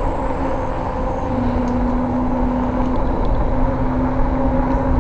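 A RadRover fat-tire e-bike rolling along a paved trail: a steady hum from the rear hub motor and fat tires, with wind rumbling on the microphone. The hum drops slightly in pitch a little over a second in.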